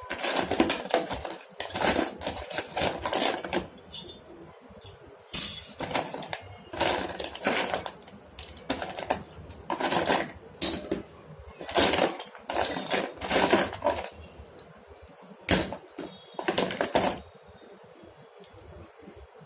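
Metal hand tools and small parts clinking and clattering as they are rummaged through and laid out from a tool bag, in irregular bursts that stop about two seconds before the end.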